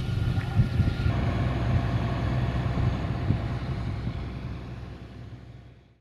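FIAT 1380DT tractor's diesel engine running steadily, fading out toward the end.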